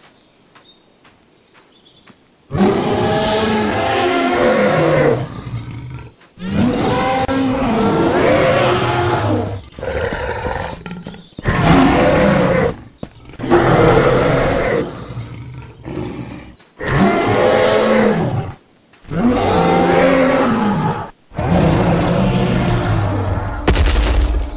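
A series of long monster roar sound effects, one after another, each lasting a couple of seconds with short breaks between, starting about two and a half seconds in.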